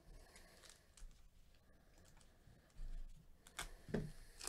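Foil trading-card pack crinkling and tearing open in a gloved hand: faint handling clicks, then a cluster of sharp crackles near the end.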